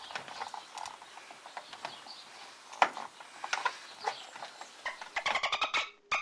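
Light taps and clicks of a metal door-reveal trim strip being handled and pressed into place against the door frame, with one sharp click nearly three seconds in. About five seconds in, quick plucked music starts.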